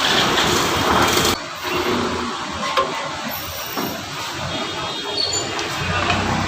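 Busy street noise with passing traffic, a steady hiss that drops abruptly about a second and a half in to a quieter mix with scattered clinks.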